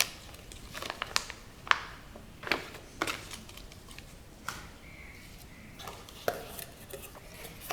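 Faint room noise from a microphone's noise floor, with about ten scattered light clicks and taps. The clearest comes a little under two seconds in.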